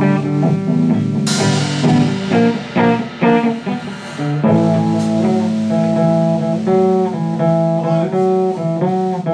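Guitar playing a blues jam: struck chords in the first few seconds, then, from about halfway, held and bent notes over a steady low note.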